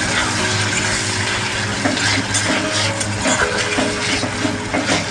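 Onions and capsicum frying in sauce in a black iron kadai (wok), sizzling steadily while a steel spatula stirs and scrapes against the pan with repeated short scraping knocks.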